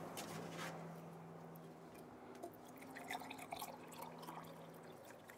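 Agua de chaya being poured from a clay pitcher into a clay cup: faint trickling and dripping, with a few light clinks about halfway through.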